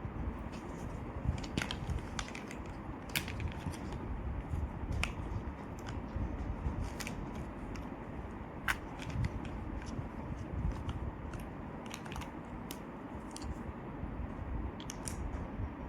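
Irregular light clicks and taps of plastic toy tools and parts being handled, over a steady low rumble.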